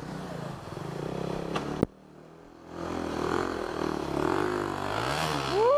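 A dirt bike engine idling steadily, broken off by a sharp click about two seconds in. Then another dirt bike approaches, its engine running and revving louder towards the end.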